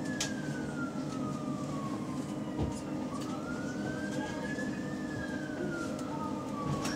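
An emergency vehicle's siren in a slow wail, the pitch falling, rising and falling again over a few seconds, heard from inside a bus over the steady hum of the bus's engine.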